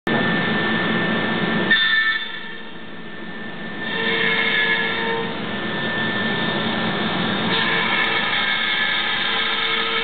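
CNC cutting machine running, a steady mechanical noise with a high, constant whine and a lower tone that comes and goes as it works; it drops back about two seconds in and picks up again around four seconds.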